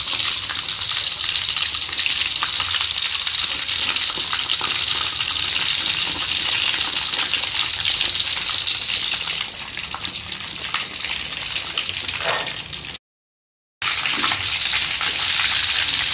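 Breaded chicken cutlets deep-frying in hot oil in a wok: a steady, dense sizzle with small crackles. The sound drops out completely for under a second near the end.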